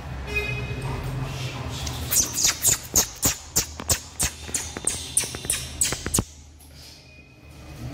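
A big mastiff's claws and a person's steps clicking and tapping on a tiled floor, a quick even run of about three clicks a second that stops about six seconds in. A short high tone sounds near the start.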